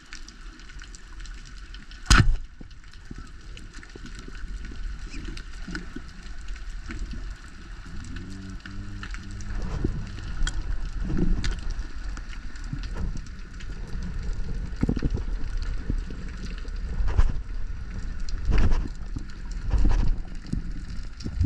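Band-powered speargun firing underwater: one sharp, loud snap about two seconds in. Afterwards, irregular low rumbling of water with scattered knocks as the speared barracuda pulls on the shaft and line.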